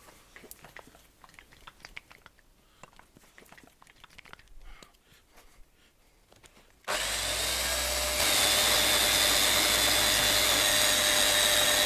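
Faint handling clicks and rubbing as polishing compound is applied to the pad. About seven seconds in, an electric random-orbit sander fitted with a foam polishing pad switches on and runs steadily with a thin whine. It gets louder about a second later and holds there while the saw's handwheel is buffed against the pad.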